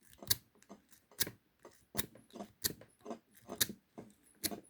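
Half-diamond lock pick zipped repeatedly through the pin stack of a Burg Wächter Magno 50 mm padlock, making short, sharp metallic clicks at an uneven pace of about three a second.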